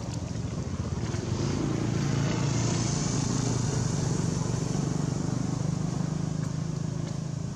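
A motor vehicle's engine running steadily, growing louder about a second in and easing off near the end, as of a vehicle passing by.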